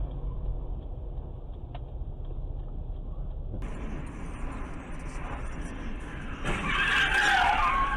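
Car tyres screeching with a loud wavering squeal for about a second and a half near the end, over the steady hum of a car driving, as a vehicle swerves ahead of a dashcam car.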